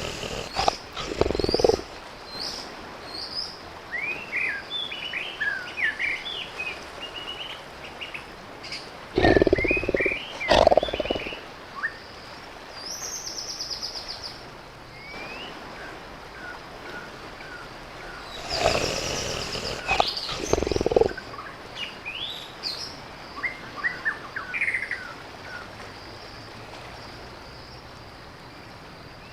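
Tiger roaring in three bouts, each of two or three loud calls, the bouts about nine seconds apart. Between them, small birds chirp and a steady high insect drone runs on.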